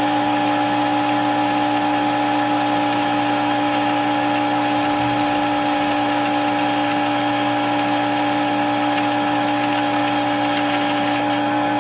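Electric sewing machine motor running steadily at speed, spinning the bobbin winder to wind thread onto a bobbin; a constant whine with no change in speed.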